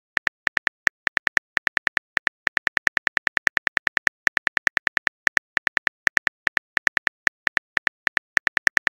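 Phone keyboard key clicks, one per letter as a text message is typed, coming quickly at about six or seven a second with a few short pauses.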